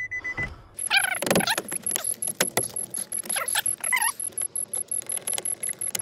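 Plastic dash trim panel of a Nissan Frontier being pushed and clipped back into place: rattling, clicking and squeaking plastic. The truck's door-open chime beeps at first, then a very high pulsing tone comes in about a second in.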